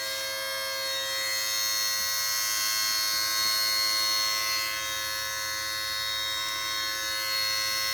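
Steady high-pitched electrical squeal or buzz from the front of a 2002 Mercedes-Benz SLK230 with the ignition on, made up of several unchanging tones. It is a fault the owner is chasing, which he traces to a vibrating module near the bottom of the radiator, close to the auxiliary fan.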